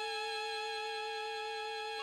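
Background music: one slow chord held steady.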